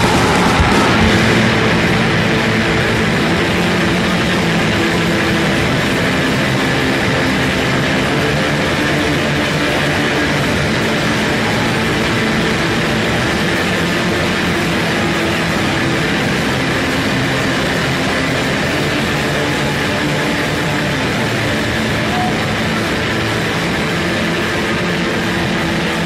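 Recorded hardcore punk song in a steady, dense section of distorted electric guitars.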